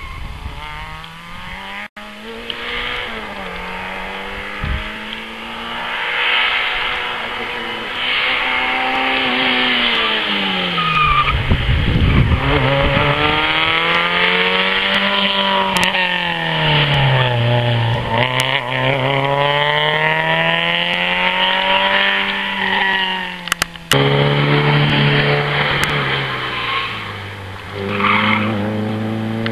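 Rally car engine revving up and falling back several times as the car accelerates and brakes through tyre chicanes, with its tyres squealing.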